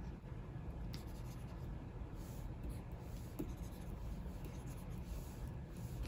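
Stylus nib of a Wacom Cintiq 24 Pro pen display scratching across its screen in short drawing strokes, with a couple of light taps, over a low steady rumble.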